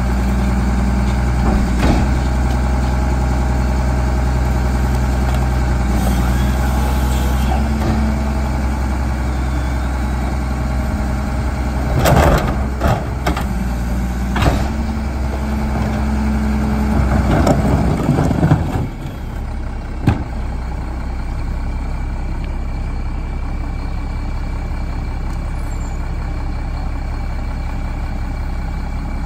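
Mack MR McNeilus rear-loader garbage truck's diesel engine running steadily, with the clatter of a plastic cart banging at the hopper twice in the middle. About two-thirds of the way through, the engine sound drops to a lower, quieter idle, and a single sharp knock follows soon after.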